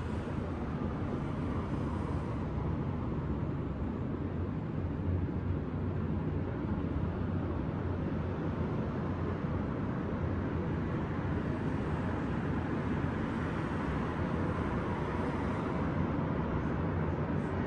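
Steady low rumble of distant city traffic, with no single vehicle or event standing out.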